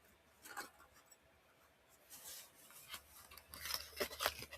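Handling sounds of padlocks being moved about and set aside: a series of short rubs, scrapes and clicks, busiest near the end.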